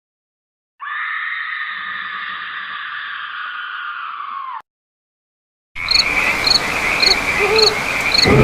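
Two sound effects separated by silence. First, a held, high-pitched cry of nearly four seconds that sags in pitch and stops abruptly. Then, about a second later, a night chorus of chirping crickets and croaking frogs, with chirps repeating about twice a second.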